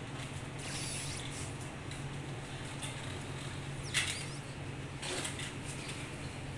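A ferret nosing a plastic cup dome lid across a tiled floor: the lid scrapes and clatters on the tiles among light pattering of claws, with a louder, sharper scrape about four seconds in. A steady low hum runs underneath.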